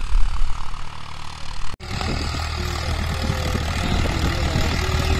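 Modified Ford 3600 tractor's diesel engine running steadily under load, pulling an eleven-tine cultivator through dry soil; its builders judge the sound to be right. The sound cuts out for an instant about two seconds in, then comes back steadier.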